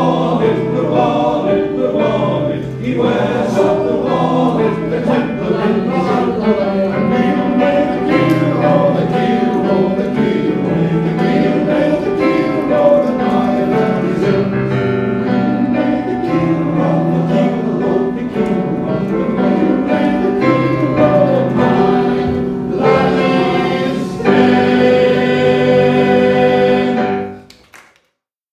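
Male voice choir singing in a live concert performance, building to a loud held chord near the end that cuts off into a brief silence.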